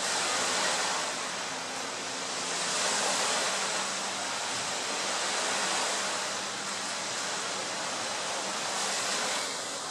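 Wind and sea noise: a steady rush that swells and eases every few seconds, with a faint low hum underneath.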